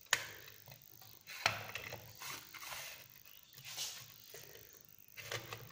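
Metal alligator clip being handled and clipped onto a terminal of a small demonstration electric motor: a sharp click just after the start and another about a second and a half in, then faint handling noises.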